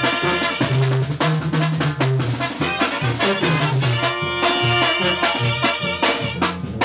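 Tamborazo brass band playing a lively tune: trumpets and other brass hold notes over a deep tuba bass line and a steady drum beat.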